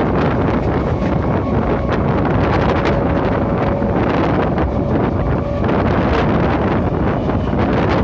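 Wind buffeting the microphone from the open doorway of an Indian Railways suburban EMU train running at speed, over the rumble and rattle of its wheels on the track. A faint steady whine from its single-phase traction motors runs underneath.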